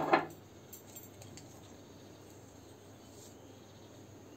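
Faint steady room hiss, with a short burst of sound right at the start and a few faint ticks about a second in.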